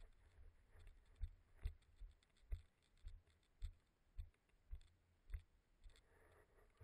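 Footsteps of a person walking on a gravel track: soft low thumps about two a second, some with a faint crunch. A brief rustle near the end.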